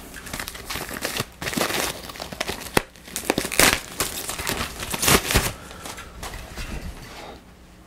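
Plastic packaging wrap crinkling and rustling as a loudspeaker is pulled out of it, in irregular bursts that die down near the end.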